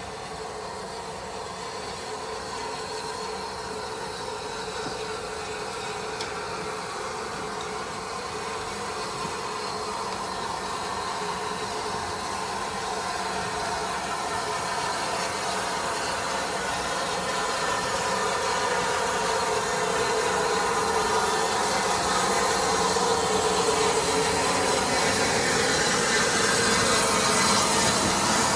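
Rebuilt Southern Railway Battle of Britain class steam locomotive 34053 'Sir Keith Park' moving slowly up to and alongside, its steady hiss and hum growing louder all the way. The hiss is strongest near the end as it draws level.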